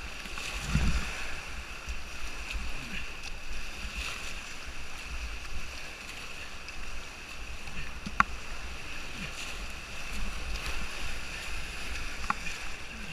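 Rushing whitewater of a river rapid heard from a kayak running it, a steady hiss of churning water with irregular low thumps. A sharp click about eight seconds in and a smaller one near the end.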